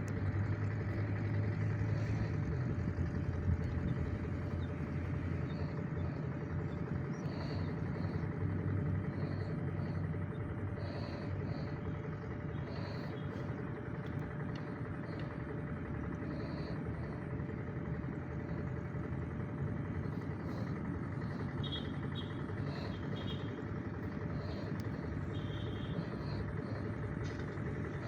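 A steady low rumble like a motor running, a little louder in the first dozen seconds and then even, with faint brief high chirps scattered over it.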